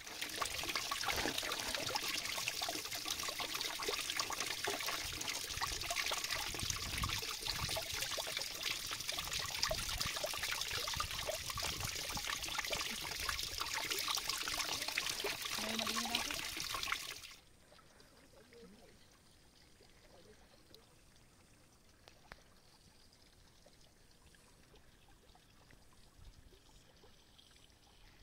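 Water running or pouring steadily for about seventeen seconds, then cutting off suddenly, leaving only faint background noise.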